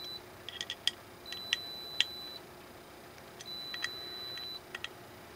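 Electronic beeper sounding a steady high beep about a second long, repeating roughly every two seconds. Sharp clicks and taps from plastic rifle parts being handled come in between the beeps and are the loudest sounds.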